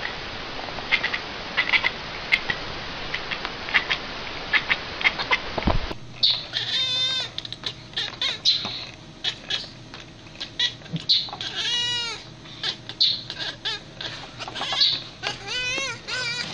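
A tabby cat chattering: quick runs of short clicking chirps over a steady background hiss. About six seconds in, a different cat takes over, meowing again and again in drawn-out calls that rise and fall in pitch.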